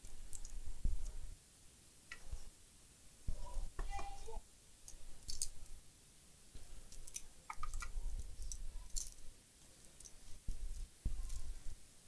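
Scattered light clicks and ticks of small tools being handled at a circuit-board soldering bench, with low bumps in between.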